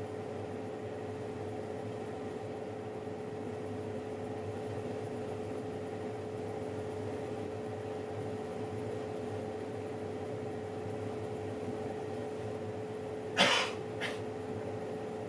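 Oven running with a steady hum and a constant tone. Near the end a short, sharp noise cuts in, followed by a fainter one.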